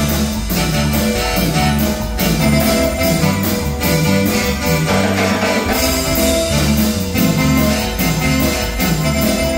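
Amplified wooden marimba band music: a lively dance tune with a steady beat and a repeating bass line.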